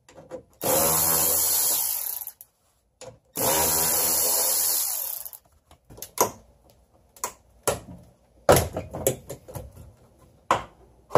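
A power tool spins a socket in two runs of about two seconds each, backing out the tail light's mounting bolts. After that come scattered short clicks and knocks as the tail light assembly is worked loose.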